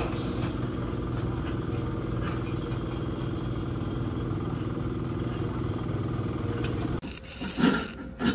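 A small engine running steadily with an even hum, which cuts off abruptly about seven seconds in and gives way to a few short, sharp sounds.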